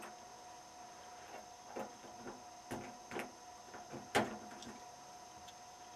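Small sharp clicks of lock-picking tools working in a lock, about half a dozen irregular clicks, the loudest about four seconds in.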